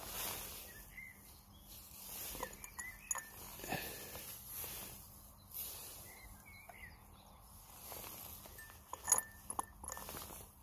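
Small clicks and knocks from handling a broken-open HDS 68 shotgun-style air pistol while a rubber ball is loaded into its barrel, the sharpest cluster about nine seconds in. Birds chirp a few times over a steady outdoor hiss.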